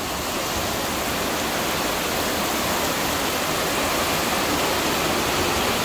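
Muddy floodwater rushing through a street, a steady loud rush of water.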